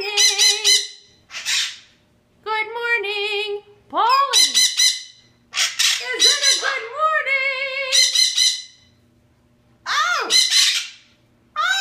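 Pet parrot squawking and chattering in a string of loud calls, some swooping up and then down in pitch and some warbling, with short pauses between them.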